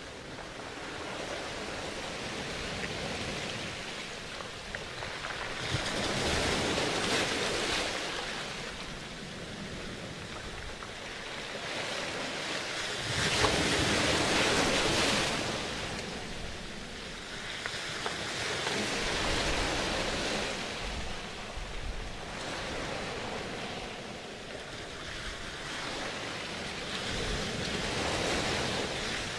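Rushing surf-like noise that swells and fades about every six to seven seconds.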